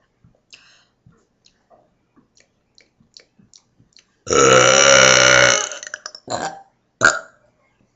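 A girl's deliberate big burp, loud and drawn out for about a second and a half, starting about halfway in. Two brief sounds follow it, and faint clicks come before it.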